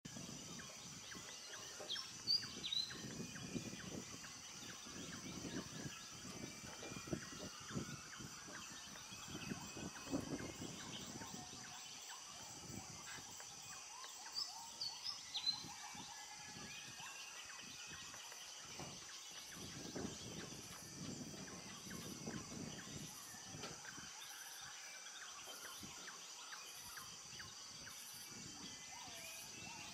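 Tropical rainforest dawn chorus: a steady high insect drone, with short bird chirps a couple of seconds in and again around fifteen seconds in. A faint high pulsing insect call, about once a second, runs through the second half.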